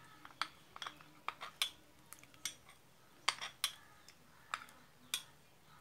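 Steel spoon clinking against a glass bowl while stirring custard powder into milk to mix out the lumps: about ten light, irregularly spaced clinks.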